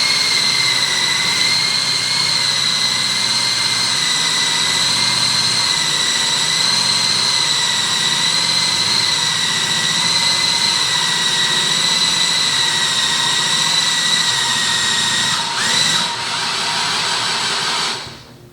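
Power drill driving the crank of a garage ceiling storage lift, running steadily at high speed with a high whine as it winds the loaded platform up. Near the end it briefly slows, picks up again, then stops.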